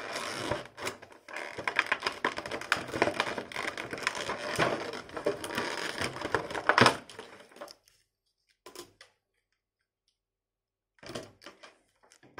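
Clear plastic blister tray crinkling, crackling and clicking as it is handled and pulled out of the toy box, continuous for about seven seconds with the loudest crack near the end of that stretch. Then a pause, and a few short rustles near the end.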